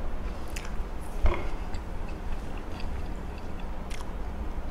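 A person chewing a mouthful of soft beef burger with the mouth closed, making a few faint mouth clicks over a steady low hum.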